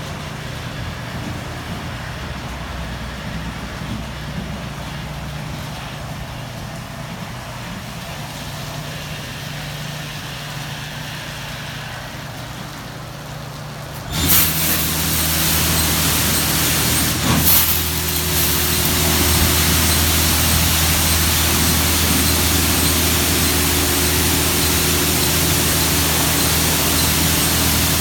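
Jim Coleman WaterWizard 1.0 car wash machine running with a steady low hum. About halfway through, its high-pressure water spray starts suddenly with a loud hiss over a steady pump-motor drone, and there is a brief extra burst a few seconds later.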